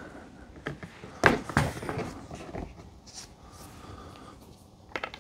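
Hard plastic office-chair parts being handled, the armrest bumping against the backrest frame: two knocks a little over a second in, then a few lighter clicks and taps.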